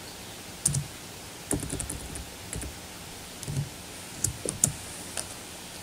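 Computer keyboard keys being typed in short, scattered bursts: a quick run of several keystrokes about a second and a half in, then single keys and small groups.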